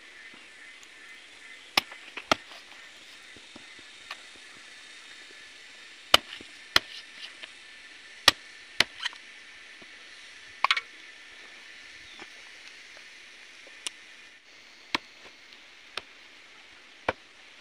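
Machete chopping raw chicken on a wooden stump chopping block: about a dozen sharp chops at irregular intervals, a few of them in quick pairs.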